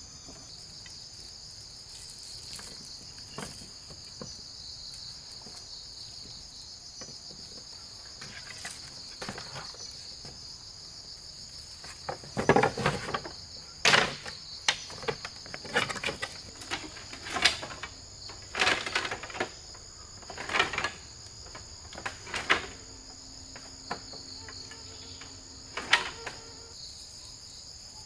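Steady high-pitched chorus of crickets. From about halfway through, a run of irregular knocks and clatters sounds over it, louder than the insects.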